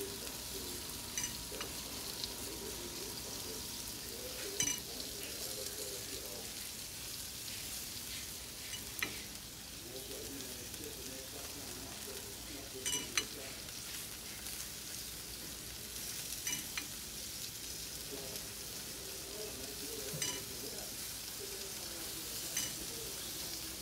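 Chicken sizzling on a hot grill as it is basted with annatto oil: a steady hiss, with a few short sharp clicks scattered through it.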